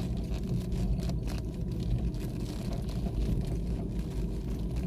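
Car driving over a rough road: a steady low rumble of road and running noise, with light irregular knocks from the rear leaf-spring suspension. The owner puts the noise down to dry leaf springs whose grease has washed out, so the leaves rub metal on metal.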